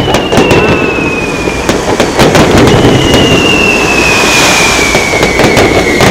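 Aerial fireworks display: shells bursting with many loud bangs and crackles in quick succession over a continuous rumble, with two long thin whistles that slowly fall in pitch, one near the start and a longer one from about halfway.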